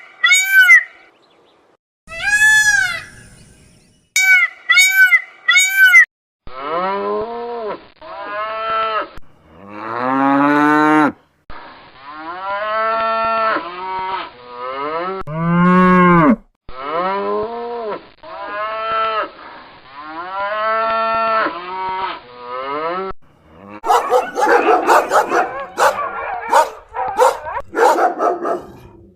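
A cow mooing over and over in long, pitched calls that rise and fall, taking up most of the time. It is preceded by a few short high-pitched animal calls and followed near the end by rapid dog barks.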